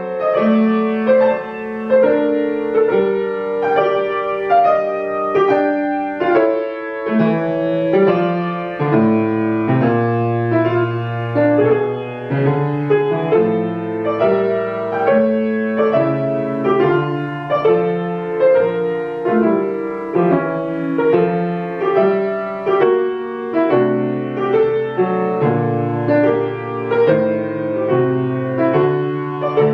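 Grand piano played solo, classical music in a continuous, even stream of notes.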